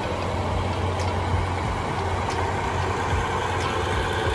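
Diesel engine of a KIHA183 railcar set running steadily, a continuous low hum.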